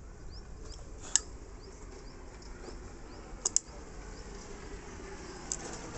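A few sharp clicks, a single one about a second in and a close pair about halfway through, from hands working with splicing gear. Faint short high bird chirps repeat throughout.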